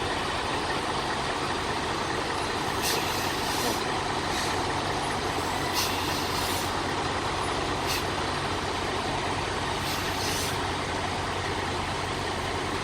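Semi truck's diesel engine running steadily at low speed while the truck is being backed, with several brief sharp sounds over it.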